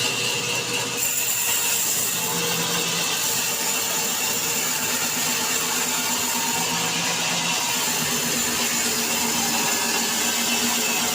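Sawmill saw cutting wood: a steady, unbroken mechanical rasp with a high whine over it.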